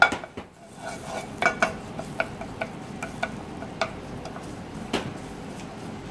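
Wooden spatula knocking and scraping against a frying pan while frying tomato paste: one sharp knock at the start, then irregular light taps over a steady low hiss from the stove.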